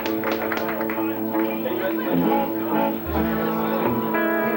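Live guitar playing: a few quick strummed chords at the start, then held, ringing notes.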